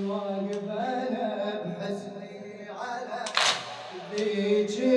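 A man's voice chanting an unaccompanied Shia latmiyya elegy in long, drawn-out, wavering notes, with a short sharp hiss about three and a half seconds in.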